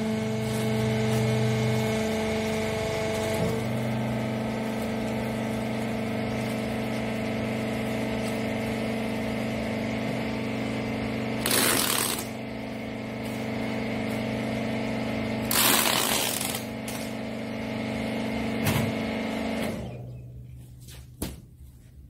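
A hydraulic rag baler's motor and pump hum steadily and shut off about 20 seconds in. Over the hum come two rasping tears of packing tape pulled from a tape gun, one about 12 seconds in and one about 16 seconds in, followed by a couple of sharp knocks near the end.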